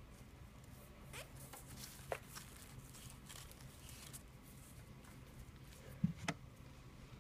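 Faint rustling and scraping of hands rubbing electrical tape flat along a wooden arrow shaft on a paper-covered table, followed by two light knocks close together about six seconds in.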